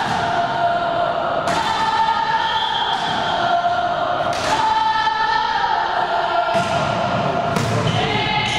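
A group of high voices chanting in a slow two-note pattern, switching between a higher and a lower held note about every one and a half seconds. Occasional volleyball hits thud in the hall.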